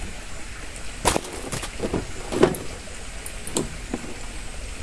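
Several irregular sharp knocks and thumps of a landing net and a netted fish being hauled into a wooden boat, the loudest about two and a half seconds in.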